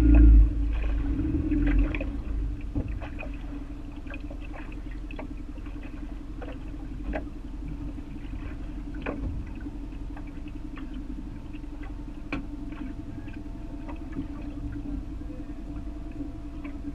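A boat motor running steadily, loud for the first couple of seconds and then settling to an even low hum, with scattered light ticks and knocks.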